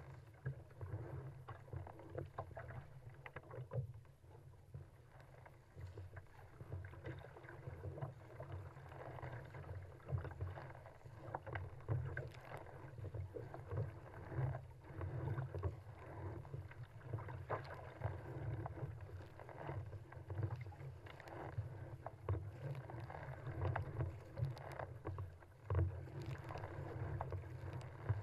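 Surfski paddling through choppy sea: irregular splashing of waves against the hull and of paddle strokes, over a steady low wind rumble on the deck-mounted microphone.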